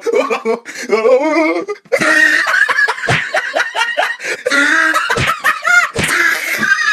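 People laughing loudly and hard, with giggling and belly laughs that overlap through most of the stretch.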